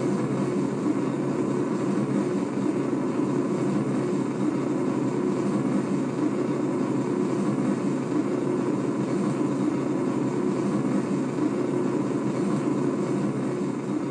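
Steady jet-engine or thruster rumble sound effect played by the MG S-Gundam Deep Striker model's sound unit through a small speaker, with no deep bass.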